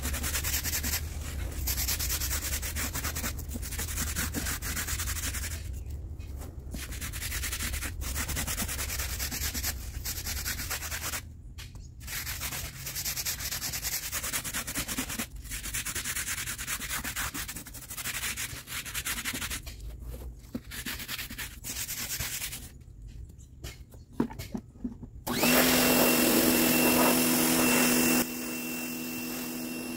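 Rubbing noise with a few short breaks. About 25 seconds in, a steady machine hum with a high whine takes over, loud for a few seconds and then softer.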